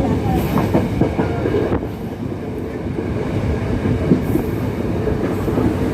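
Yal Devi passenger train running along the track, heard from on board: a steady rumble with the rattle and clatter of the carriage wheels on the rails.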